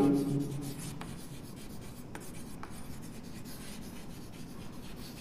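Chalk writing on a chalkboard: faint scratching, with a few light taps as the letters are formed.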